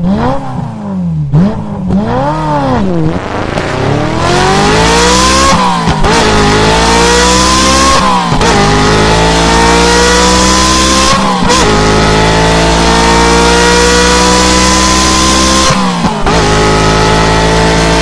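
Motorcycle engine revved in three quick throttle blips, then accelerating hard, its pitch climbing through four upshifts, each marked by a brief cut in the sound and a drop in pitch.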